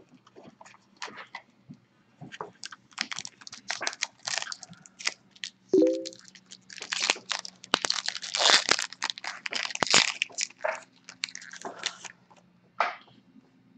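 Baseball card pack's foil wrapper being torn open and crinkled by hand, with irregular crackling that comes and goes and is loudest in the middle.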